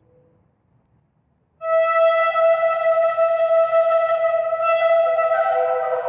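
A shofar blast. After about a second and a half of near silence, a long held horn note starts suddenly and sustains. Near the end a second, lower note joins beneath it.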